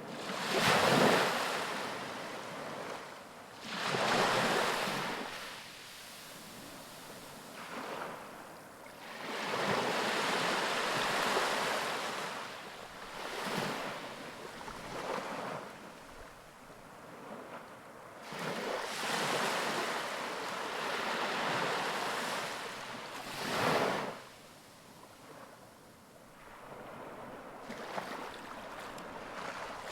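Ocean waves breaking on a beach, each surge of surf swelling and washing back every few seconds in an uneven rhythm.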